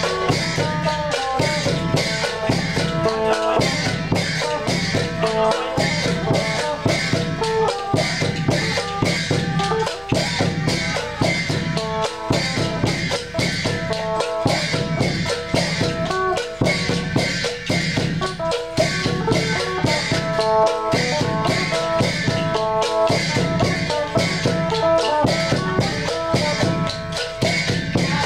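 Isan folk ensemble playing: many mak kap kaep wooden clappers clacking together in a fast, continuous rhythm over the beat of a large barrel drum, with a phin lute plucking the melody.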